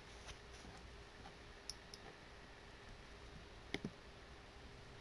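A few faint computer mouse clicks over quiet room tone, the sharpest a quick double click about three-quarters of the way through.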